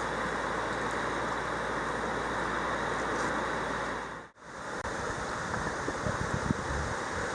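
Steady rush of water, with wind buffeting the microphone in low, irregular thumps during the second half. The sound drops out briefly about four seconds in, where two shots are joined.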